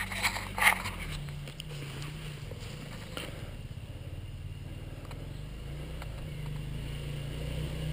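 Enduro motorcycle engine running at low revs, steady and growing louder near the end.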